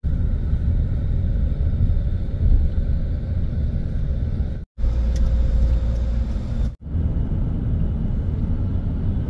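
Low, steady vehicle rumble, heavy in the bass, cut off briefly twice: a little under five seconds in and again about seven seconds in.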